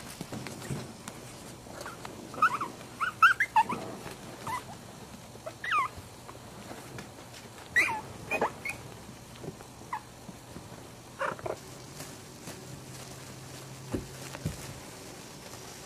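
Maltese puppies giving short, high-pitched squeaks and yips at play, scattered irregularly with some calls rising and some falling in pitch, over a steady low hum.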